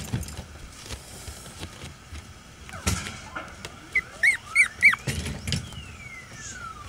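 White Pomeranian puppy giving short, high whimpering squeaks, about four in quick succession a little after the middle, with a few soft thumps as it moves about.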